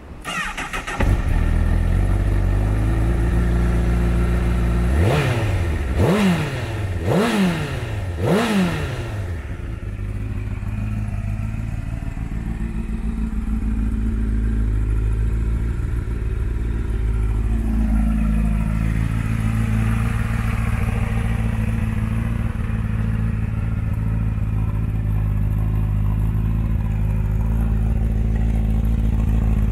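2013 Honda CBR1000RR inline-four with a Yoshimura USA slip-on exhaust, started with a short crank and catching about a second in, then idling. Three quick throttle blips between about five and nine seconds in, each rising and falling, before it settles into a steady idle.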